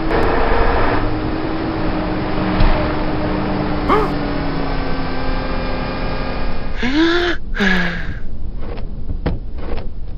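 A car engine humming at a steady, slightly drifting pitch, then two loud sweeping vocal-like sounds about seven seconds in, followed by scattered light clicks.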